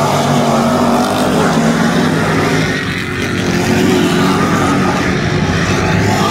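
Several dirt-track race car engines running hard as a pack of cars passes close by, their engine notes overlapping. The sound dips briefly about halfway through as the cars move off, then builds again.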